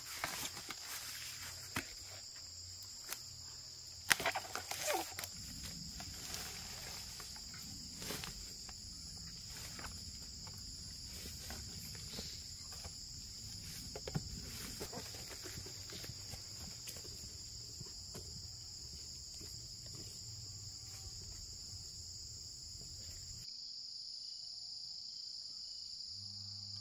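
A steady high-pitched insect chorus, with scattered rustles, crackles and footsteps in dry leaves and undergrowth from someone handling and carrying bamboo shoots in a woven basket, the rustling loudest about four seconds in and stopping near the end.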